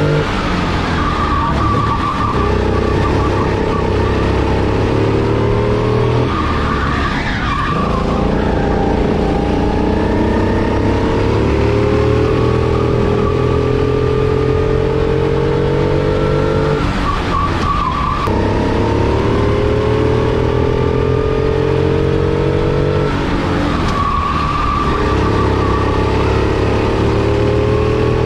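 Four-stroke kart engine heard from onboard, its pitch climbing steadily under acceleration and then falling sharply three times as the throttle is lifted for corners before it climbs again.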